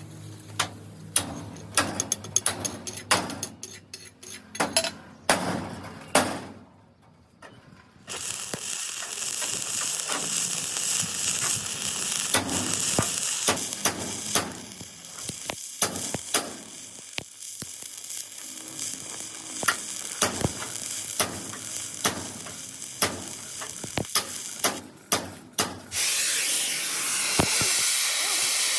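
Metal tapping and clicking, then a steady crackling sizzle of arc welding on steel, interrupted by scattered clicks and louder again near the end.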